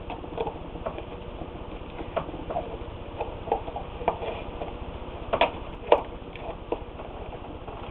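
Scattered light clicks and taps at irregular intervals over a steady low hum, two sharper ones a little past the middle.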